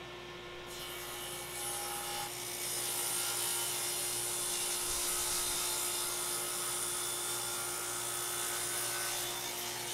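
Table saw blade cutting along the edge of a wooden checkerboard panel, over the steady hum of the running saw. The cut's hiss starts about a second in, grows louder, and stops right at the end.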